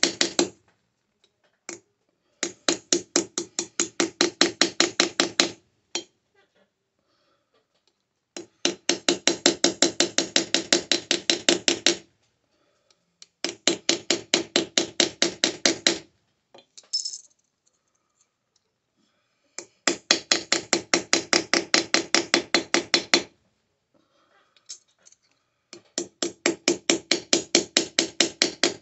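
Hammer blows forging a sterling silver bar by hand: runs of rapid, even strikes, about five or six a second, each run lasting three to four seconds, with short pauses between runs.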